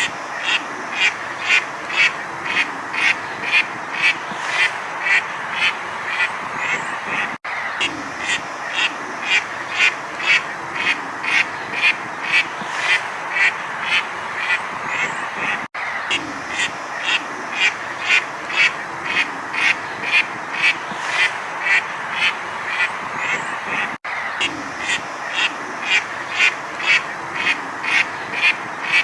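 A duck quacking in a steady rhythmic run, about two quacks a second, over a continuous background din. The same stretch of recording repeats about every eight seconds, each repeat marked by a brief dropout.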